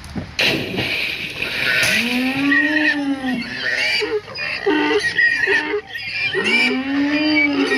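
Farm-animal calls: a long moo that rises and falls, a run of short pig-like grunts, then a second long moo, with high squeaks over the top. A burst of noise comes just before the first moo.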